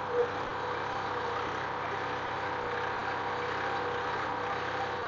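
Tractor engine running steadily under load while pulling a hydraulic two-disc plough through the soil, with one brief thump just after the start.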